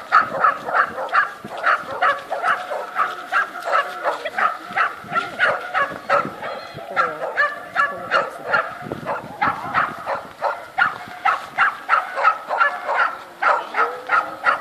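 Small dog, a schipperke, barking nonstop in short, high, sharp barks at about three a second.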